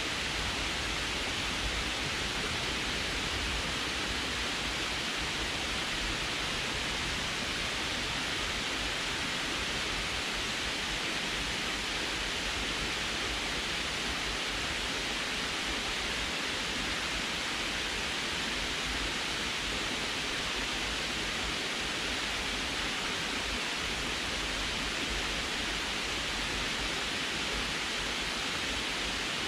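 Water spilling over the sloped concrete face of a small canal dam and splashing into the pool below: a steady, unbroken rush.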